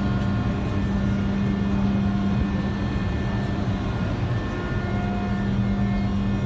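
Steady drone of shipboard machinery on deck: a constant low hum with a few fainter steady whining tones above it and a rumble underneath, holding level throughout.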